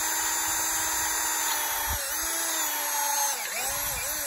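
Cordless drill boring into a steel T-post, its motor giving a steady whine. The pitch sags about two seconds in and wavers several times near the end as the bit loads up against the steel.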